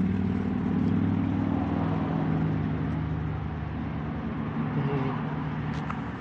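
A motor vehicle engine running steadily, a low drone that eases off a little about halfway through.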